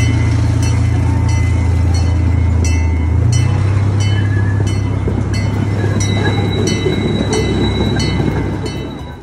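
Miniature passenger train pulling away: a loud, steady low engine drone that shifts pitch about three seconds in, with its bell ringing about twice a second. The sound fades near the end as the train moves off.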